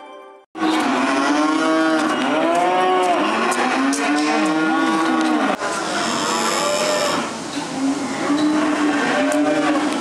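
Many penned cattle mooing and bellowing at once, their calls overlapping without pause. They start abruptly about half a second in.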